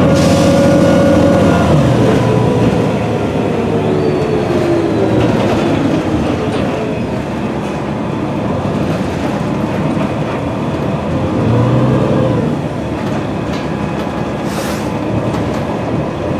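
Cabin sound of a 2006 New Flyer D40LFR diesel bus under way, its Cummins ISM engine and Voith automatic transmission running with road rumble and rattles. The engine note is loud for about two seconds, then drops and eases off, and a short hiss comes near the end.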